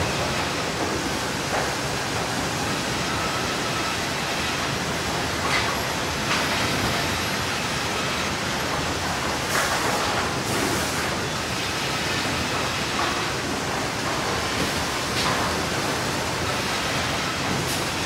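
Sawmill machinery running: a dense, steady noise with brief louder rushes every few seconds.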